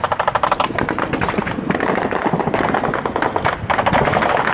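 Automatic gunfire in sustained rapid bursts, many shots a second, going on without a break.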